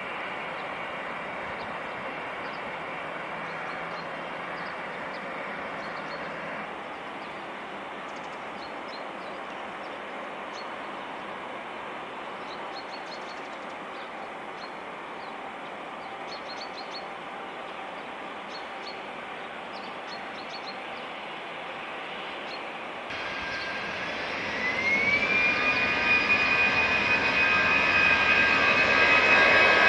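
Steady rushing noise of a distant jet airliner. About 23 seconds in, the sound jumps to a louder jet whose engine whine rises in pitch and then holds steady as the noise keeps growing: the engines spooling up to thrust.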